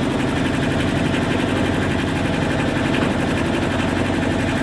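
A sailboat's inboard engine running steadily with a fast, even firing pulse.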